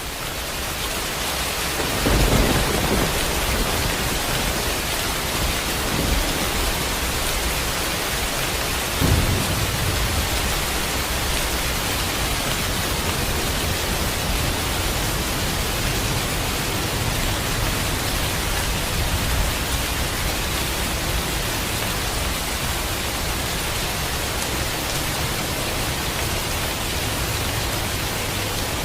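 Heavy steady rain, fading up over the first couple of seconds, with thunder: a loud low rumble about two seconds in, a weaker one near six seconds and another about nine seconds in, then unbroken rain.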